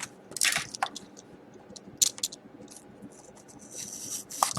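A sealed hockey-card hobby box being opened by hand: short scratches, crinkles and small ticks of its wrapping and cardboard, with a longer rustle near the end.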